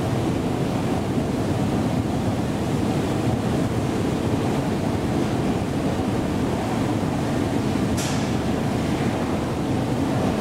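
ASEA-Graham escalator with its original steps running, a steady low rumble from the moving steps and drive. About eight seconds in, a short hiss starts suddenly and fades.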